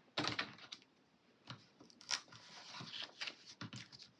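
Paper planner stickers being peeled from their backing sheet and handled: a series of short crackles, taps and rustles, with a sharp one near the start and another about two seconds in.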